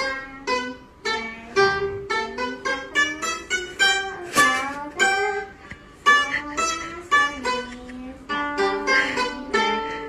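Chinese plucked lute played solo: a steady run of single plucked notes, several of them bent in pitch as they ring.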